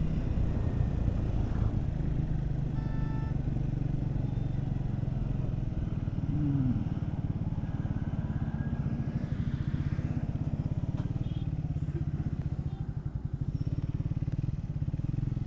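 Triumph Speed 400's single-cylinder engine running steadily while riding on the road, with a brief beep about three seconds in.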